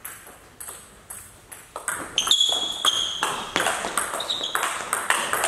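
Table tennis ball clicking off the bats and the table during a point: faint taps at first, then a quick run of sharp, ringing clicks from about two seconds in as the rally gets going.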